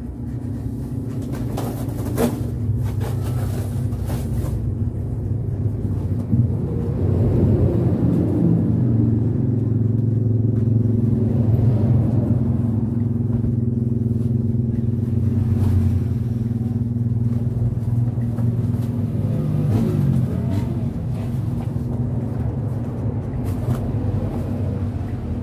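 A steady low motor hum, with a few knocks from things being handled.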